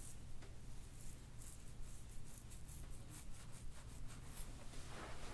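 Quiet, quick rustling and scratching strokes of hands rubbing over clothing and skin during hands-on massage, over a low steady hum.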